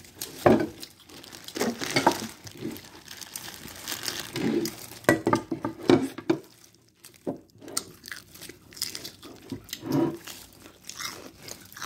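Disposable plastic gloves crinkling as they handle a fried chicken drumstick, mixed with crunching bites and chewing of the crispy chicken. The sounds come as irregular short rustles and crunches.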